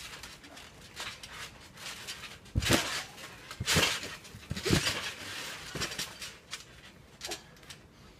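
Children's bodies landing and bouncing on a trampoline mat during rough play, with three loud thuds between about two and a half and five seconds in, mixed with short vocal noises from the wrestlers.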